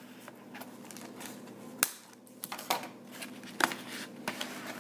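Scissors slitting the packing tape on a small cardboard box, then the cardboard lid being handled and lifted: a few sharp clicks and scrapes, the sharpest about two seconds in.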